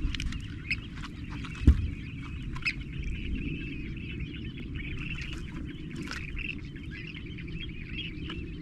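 Birds calling in a steady chatter over low wind and water noise, with a single knock about a second and a half in.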